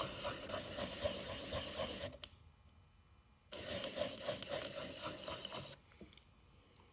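Plane blade's bevel rubbed in small circles on an oiled 1200-grit diamond sharpening stone, a steady scratchy rasp. Two bouts of about two seconds each, with a short pause between.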